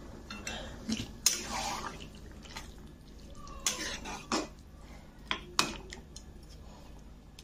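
A cooking utensil stirring thick chayote curry in a metal pan, with scattered sharp clicks and scrapes as it knocks against the pan.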